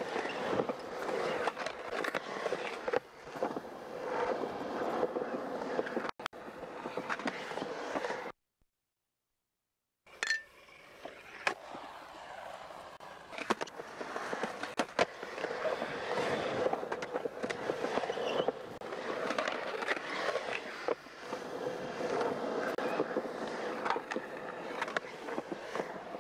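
Skateboard wheels rolling on a concrete skatepark surface, broken by sharp clacks of the board striking the concrete. The sound cuts out completely for about two seconds a third of the way through, then the rolling resumes.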